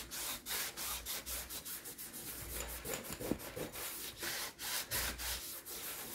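Cloth rubbed quickly back and forth over cardstock to press a freshly glued piece down, a run of short swishing strokes at about three or four a second.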